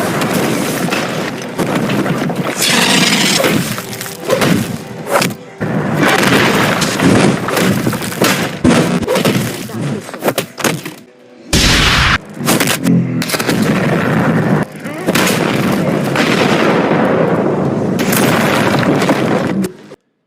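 Dense, layered action sound effects for a superhero fight: heavy booms, impacts and crashes of breaking debris in quick succession, with one very deep boom about halfway through. The sound cuts off suddenly near the end.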